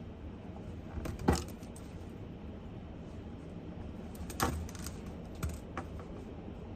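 A few scattered sharp clicks and taps of small objects handled at a desk, the loudest about a second in and a cluster of lighter ones past the middle, over a steady low background hum.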